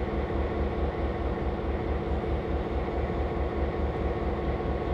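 Diesel locomotive engine running close by, a steady low throbbing rumble.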